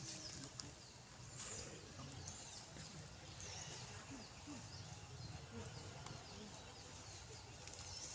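Faint outdoor scrub ambience with scattered short, high chirps.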